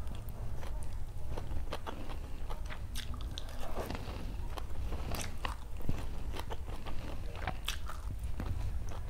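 A person chewing and biting food close to the microphone: a run of irregular sharp mouth clicks and smacks, one louder than the rest about six seconds in, over a steady low hum.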